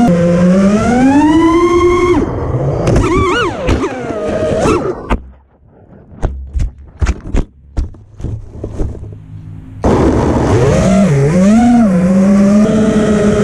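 Motors and three-blade propellers of a 5-inch FPV racing quadcopter (T-Motor F40 2600kv motors on HQ V1S props) whining, their pitch rising and falling with the throttle. About five seconds in the throttle drops almost to nothing for several seconds, broken by a string of short sharp blips, and the motors spin back up with the whine about ten seconds in.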